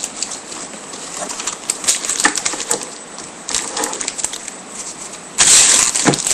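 Bowman Chrome trading cards being handled and slid against each other, making small clicks and rustles. About five seconds in, a louder crinkling starts as a pack wrapper is torn or crumpled.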